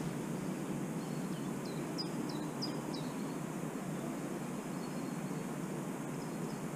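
Steady outdoor background noise with a small bird calling: a quick run of short, high whistled notes, each dropping at the end, between about one and three seconds in.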